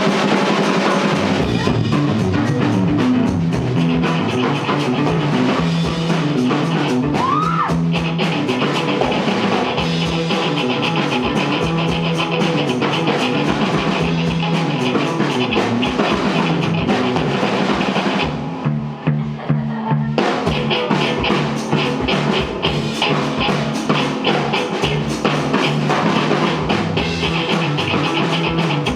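Live rock band playing an instrumental passage with drum kit and electric guitar and no singing. About eighteen seconds in the cymbals and drums drop out for a couple of seconds, then the full band comes back in.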